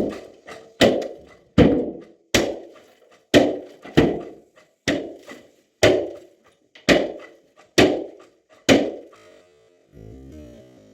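Hammer blows on wooden concrete formwork as it is knocked loose for stripping: about eleven hard, hollow-ringing wooden knocks, roughly one a second, stopping about nine seconds in.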